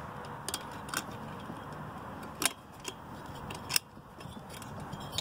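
A sheet-metal heat shield clicking and scraping against the cylinder studs on a chainsaw's carburetor side as it is worked into place. About five sharp metallic clicks, the loudest a little before four seconds in, over a steady background hiss.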